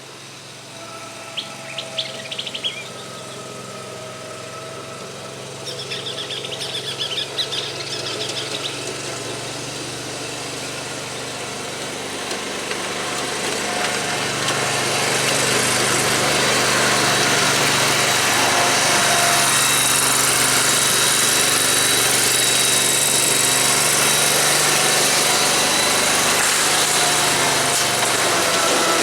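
An engine running steadily, with birds chirping over it in the first few seconds. About twelve seconds in it grows louder and then stays loud and steady.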